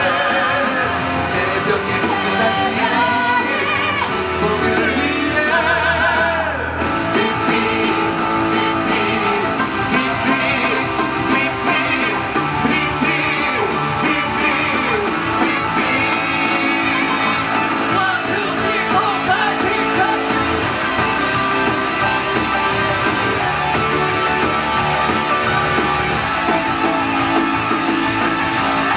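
A rock number from a stage musical, sung live over rock accompaniment with guitar.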